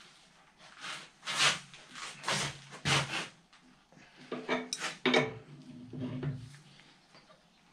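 Hand work on the steel hydraulic fittings and hoses of a homemade log splitter: a series of short metallic clinks, knocks and rubbing noises as fittings and tools are handled, several separate bursts.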